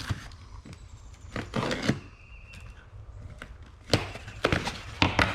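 Handling and opening a box of stored items: a stretch of rustling, then several sharp knocks and clacks near the end.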